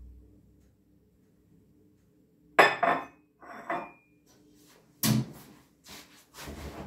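Clatter of dishes and a metal pot being handled on a kitchen counter, starting about two and a half seconds in: a few sharp knocks and clinks, one with a short ringing tone.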